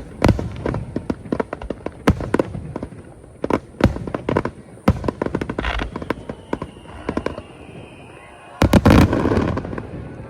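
Aerial fireworks bursting at close range: a rapid string of sharp bangs and crackles, with the loudest cluster of booms about nine seconds in.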